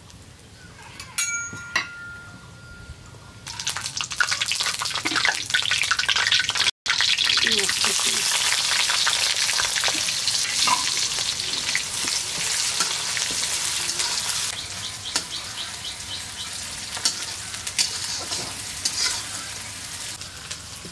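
Hot oil in a cooking pot sizzling with whole spices (white cardamom, cinnamon, bay leaves) being fried and stirred. A light metallic ring comes first, then the sizzle starts suddenly about three and a half seconds in and goes on loud, easing slightly in the second half.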